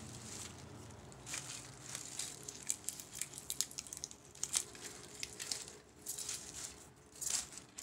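Hands handling a small diecast model car over bubble wrap: light crinkling and rustling of the plastic wrap, with many small scattered clicks and ticks as packing-foam bits are picked off.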